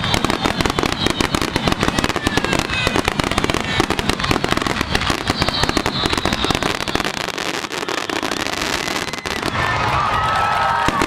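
Fireworks barrage: many aerial shells bursting in rapid succession, in a dense run of bangs and crackling that eases about nine seconds in.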